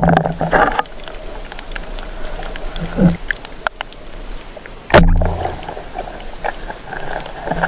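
Underwater sound of night spearfishing among the reef: scattered faint clicks and crackles over a steady hiss, with two heavy thuds, one right at the start and one about five seconds in, as the spear is worked along the silty bottom.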